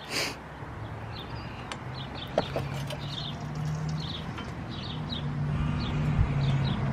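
Small birds chirping over and over, under a low engine hum that grows steadily louder through the second half. A short burst of hiss right at the start.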